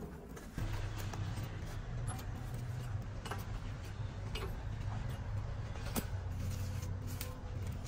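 Machinery running with a steady low hum that starts about half a second in, with scattered sharp clicks and knocks.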